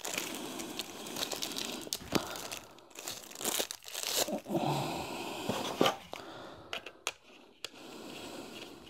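Clear plastic packaging crinkling and rustling as a router antenna is unwrapped and handled, with a few sharp clicks.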